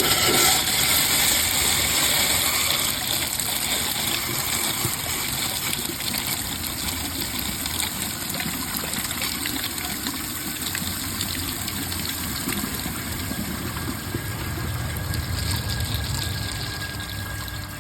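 Vortens Vienna round toilet on a mid-height tank flushing through only its regular-size rim jets, the larger jets blocked. Water rushes in suddenly, then slowly eases off. It is a weak flush that barely siphons, with a lot of water spraying.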